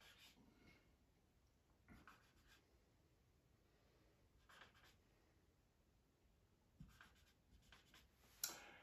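Dry-erase marker writing on a whiteboard: faint, scratchy strokes in short groups, the loudest one near the end.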